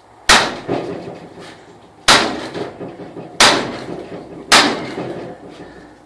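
Four hard blows of a small sledgehammer on a big steel socket and bolt set against a front wheel bearing in its steering knuckle, driving the bearing out. Each strike is a sharp metallic crack with a short ringing tail, about a second or two apart.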